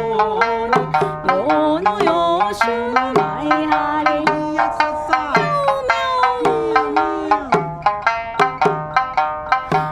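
Music: a melody with bending, sliding notes, including a long downward slide in the middle, over a steady drum beat of about three strokes a second.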